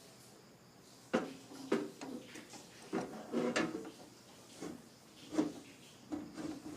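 Clicks and knocks of a drive being handled and fitted into a desktop PC case's drive bay. The strokes come one by one and are busiest about three seconds in.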